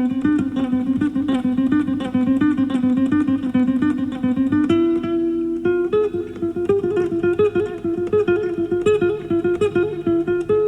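Classical guitar played live: a quick, continuous run of plucked notes over held bass notes. It is heard from an FM broadcast taped on cassette, so the top end is dull.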